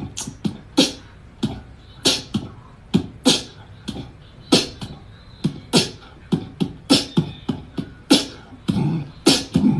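Beatbox-style percussion: an uneven run of short thumps and sharp, hissing clicks, about two a second.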